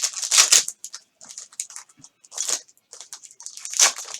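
Crinkling and rustling of sports card packaging and cards being handled, in irregular bursts that are loudest at the start and again near the end.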